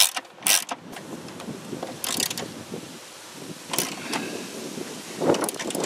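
Ratchet wrench and socket working the mounting bolts of a Jeep Grand Cherokee's engine computer: a few sharp metallic clicks and clinks spaced about a second or more apart, over a light hiss of wind.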